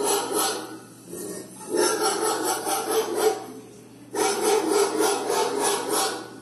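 Recorded dogs barking in fast volleys, played loud over the house speakers as the alarm for someone sleeping. It comes in three bursts of about two seconds each, with short gaps between.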